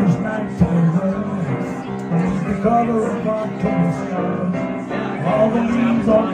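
Live piano music: a grand piano playing a slow tune with chords.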